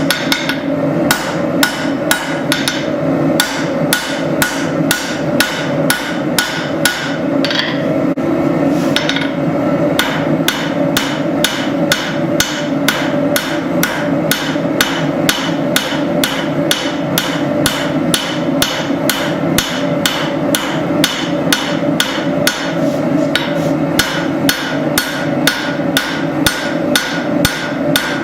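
Hammer blows on hot spring steel over an anvil, drawing out a tanto blade, at a steady rhythm of about three strikes a second with a brief break near the 8-second mark. A steady drone runs underneath.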